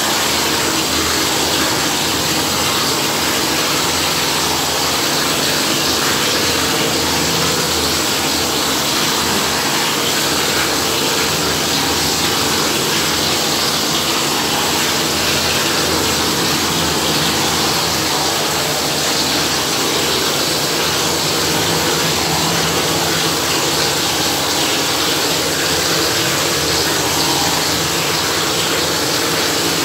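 Plaster spraying machine running steadily, pumping gypsum plaster through its hose, with a loud hiss of compressed air at the spray gun as the plaster is sprayed onto the wall.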